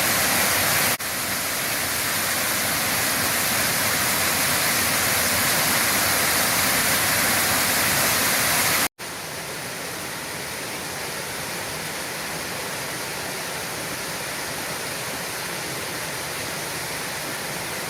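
Waterfall cascade on a mountain stream: a steady rush of falling water. There is a short dip about a second in, and a brief drop-out near nine seconds, after which the rush is quieter.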